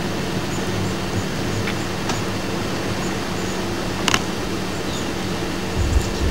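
Steady hiss and low hum of an old VHS camcorder recording outdoors, with a couple of faint clicks and a low rumble starting near the end.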